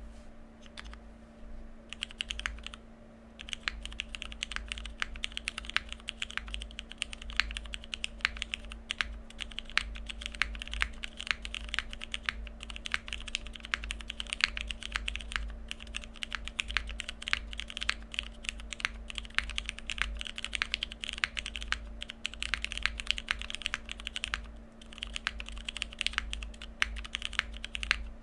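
Typing on a Frog mini mechanical keyboard with lubed and filmed vintage Cherry MX Black linear switches in an aluminium plate with no foam, under OEM-profile keycaps. A fast, continuous run of keystroke clacks starts about two seconds in, with a couple of brief pauses.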